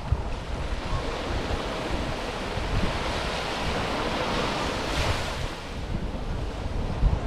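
Small sea waves washing up on the beach, one wash swelling and peaking about five seconds in, with wind rumbling on the microphone.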